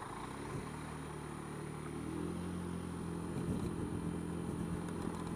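Honda Dio scooter engine running as the scooter moves off and rides along, its note picking up about half a second in and then holding steady.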